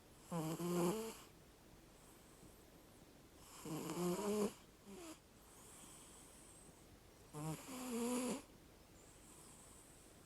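Snoring: three snores about three and a half seconds apart, each about a second long, with a low pitched rasp.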